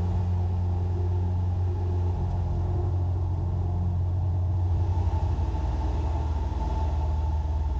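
A Piper Cherokee Six's six-cylinder Lycoming engine and propeller drone steadily at climb power during a go-around, heard from inside the cabin. The tone shifts slightly about five seconds in.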